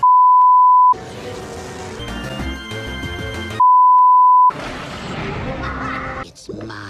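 Two loud, steady test-tone beeps of about a second each, the tone that goes with TV colour bars: one at the start and one about three and a half seconds in. Snatches of music fill the gaps between and after them.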